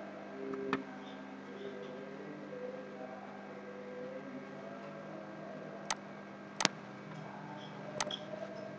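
Steady electrical mains hum, with four sharp computer-mouse clicks spread through it.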